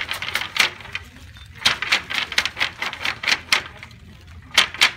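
Wooden flax brake clacking rapidly as its hinged blade is beaten down into the jaws, crushing retted flax stalks to break the woody shives away from the fibre. The clacks come about five a second in three quick runs, with short pauses about a second in and near the four-second mark.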